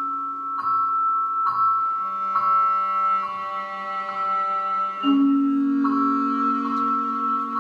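Slow instrumental music: a high bell-like struck note repeats a little more than once a second over held lower tones, which shift to new chords about two seconds in and again near five seconds.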